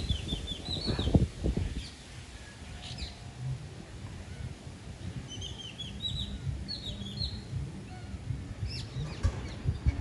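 Parakeets calling in quick runs of short, high, chattering notes, loudest about a second in and again around six to seven seconds, with single calls between. Wind rumbles on the microphone at the start and again at the very end.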